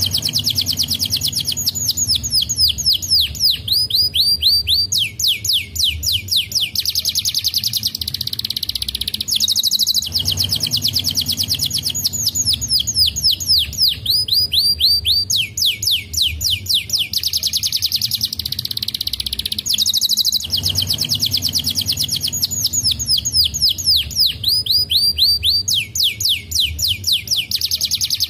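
Domestic canary singing: a fast, high trill, then a run of quick downward-sweeping notes that slow down, then another fast trill. The same phrase comes round about every ten seconds, three times in all.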